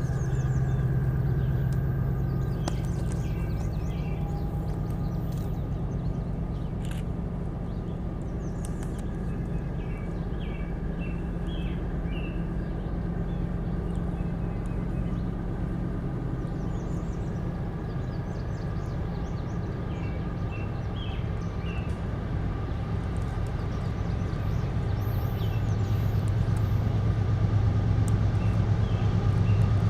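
Diesel locomotive engine running in the distance, a steady low rumble that grows louder over the last few seconds as the train draws closer.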